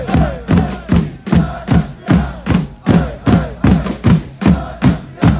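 Football supporters' drum struck in a steady beat, about three strokes a second, with the crowd chanting in time with it.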